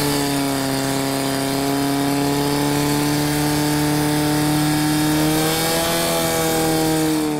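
Portable fire pump's engine running flat out as it pumps water through the attack hoses, a steady high-revving drone that rises slightly in pitch about five seconds in.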